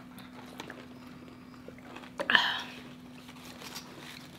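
Quiet eating sounds at a table: soft chewing and small clicks of food being handled, over a faint steady hum, with one brief louder mouth sound a little past halfway.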